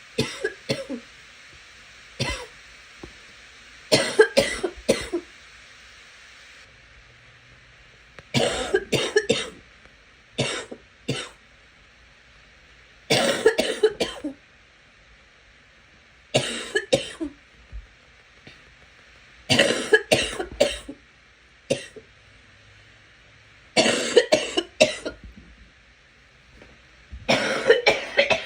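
A girl coughing in repeated fits, each of several sharp coughs in quick succession, with a new fit every few seconds.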